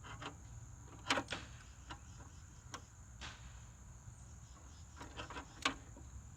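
Crickets chirping in a steady high trill, with a few scattered clicks and knocks from handling metal parts, the loudest about a second in.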